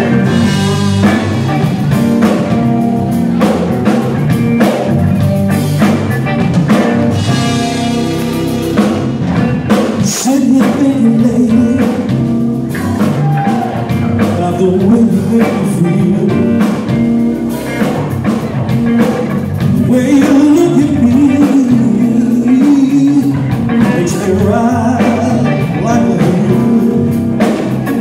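Live blues band playing: electric guitar, bass and drum kit, with a wavering melodic line over the band in the second half.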